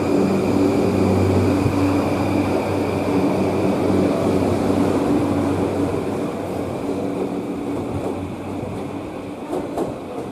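Electric train running, a steady low hum with a high whine above it, fading over the last few seconds; a few sharp clicks come near the end.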